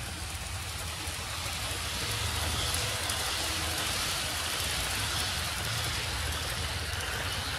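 HO scale Athearn EMD GP38-2 model locomotive running and pulling its freight cars along sectional plastic-roadbed track: a steady low electric hum with rolling-wheel noise, growing a little louder about two seconds in as the train passes close.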